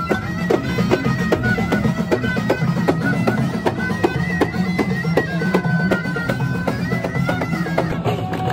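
Traditional street music: frame drums beaten in a steady beat under a high, held melody line that steps between a few notes. The music changes near the end.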